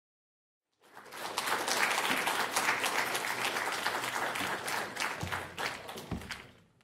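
Audience applauding at the end of a talk. The clapping starts about a second in and fades out near the end.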